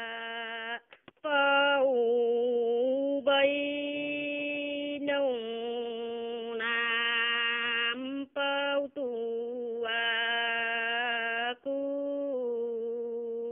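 A woman singing a slow Dao folk song unaccompanied, a sung reply in call-and-response (hát đối) style. She holds long notes that glide and waver between pitches, with a few short breaks for breath.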